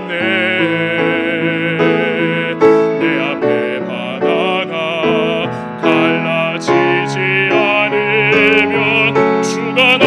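A baritone singing Korean lyrics with a wide vibrato over piano accompaniment.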